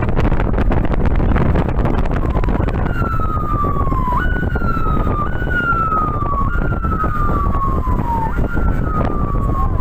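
A siren that sweeps down in pitch and jumps back up about once a second, repeating several times from about three seconds in, over a loud steady low rumble.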